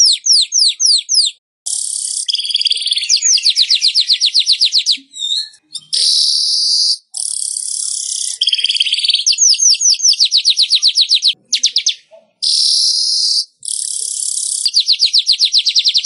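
Weaver (burung manyar) song played as a training recording: high, rapid ticking trills of about ten notes a second alternating with dry, sizzling buzzes, in phrases of one to two seconds with brief gaps between them.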